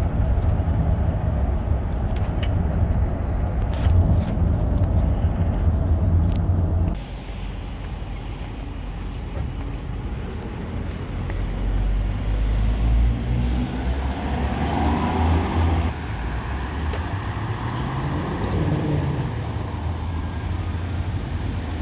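Low, steady road rumble inside a moving vehicle. After a cut about seven seconds in, it gives way to quieter street traffic, with vehicles passing by.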